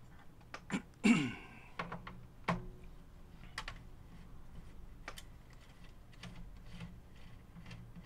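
Scattered clicks and light knocks of a screwdriver and small parts being handled on a workbench while the screws holding a video recorder's tape deck are undone. The loudest is a clatter about a second in, with another knock about two and a half seconds in.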